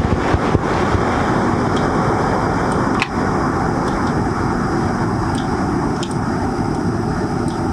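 A steady, loud rushing noise with a low rumble underneath, and a few faint clicks of a computer mouse scattered through it.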